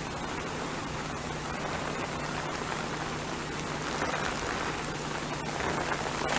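Steady heavy rain from a hurricane falling and hissing evenly, with no breaks.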